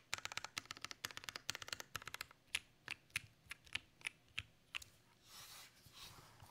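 Custom mechanical keyboard with lubed and filmed L+F Nixie switches in a nylon plate, with GMK Yuru keycaps, being typed on: a quick run of keystrokes, then about eight single presses spaced out. Near the end comes a brief rustle and scrape as the board is handled.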